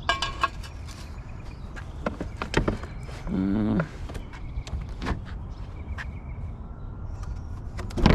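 Knocks and clatters of curbside junk being handled, poles and a chair picked up and moved, with a brief wavering tone about three seconds in.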